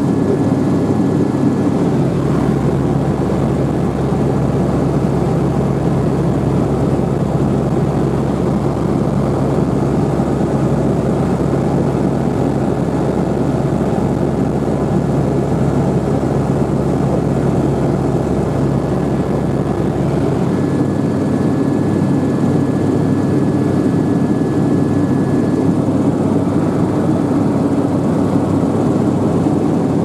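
Helicopter in flight, heard from inside the cabin: the engine and rotors run with a loud, steady drone and a low hum. The deepest rumble eases a little about two-thirds of the way through.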